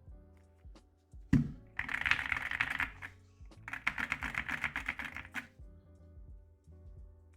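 Fast typing on the wooden-cased AKKO MU01 mechanical keyboard: a single thump about a second in, then two quick runs of keystrokes, each a little over a second long, over background music.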